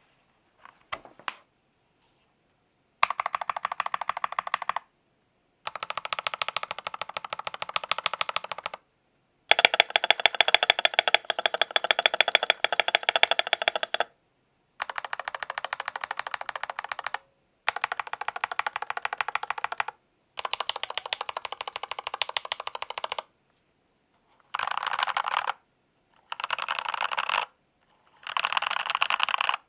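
Royal Kludge RK96 mechanical keyboard being typed on quickly, in a series of separate bursts a second to several seconds long, each ending in a sudden silence. The last few bursts are shorter.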